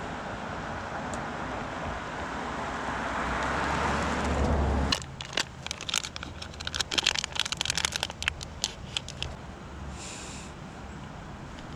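A rushing noise with a low rumble builds and cuts off suddenly about five seconds in, followed by a run of rapid crackling and clicking handling noises close to the microphone.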